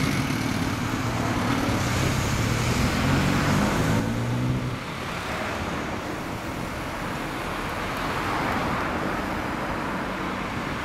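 Kawasaki GPz1100's air-cooled inline-four, fitted with a Kerker exhaust, running at low revs as the motorcycle pulls away; its note stops about four to five seconds in. After that there is steady road traffic noise from passing cars.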